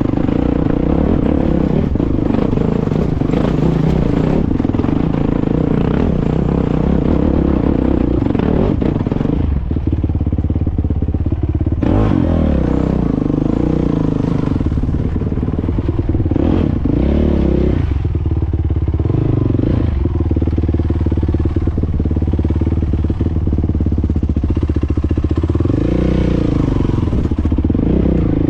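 Yamaha dirt bike engine under load on a steep rocky climb, its pitch rising and falling as the throttle is blipped and eased, with rocks clattering under the tyres.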